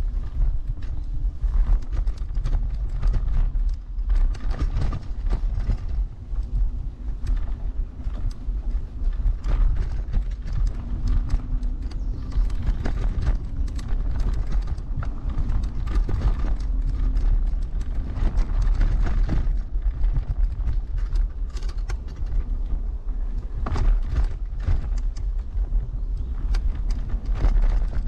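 Heavy RS New Vision electric scooter riding over a rough forest track: a continuous low rumble dense with rapid knocks and rattles as the scooter is jolted by the bumps.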